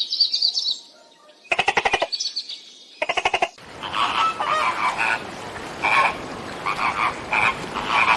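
Wild animal calls: three short bursts of rapid pulsed calling, then from about halfway a dense chorus of repeated short chirping calls.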